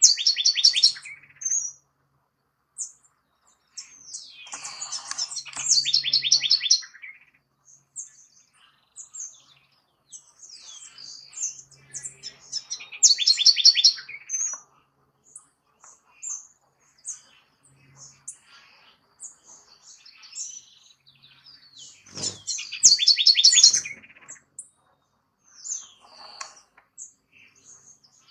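House wren singing: four loud songs about eight seconds apart, each with a fast run of repeated high notes, and softer high notes between them.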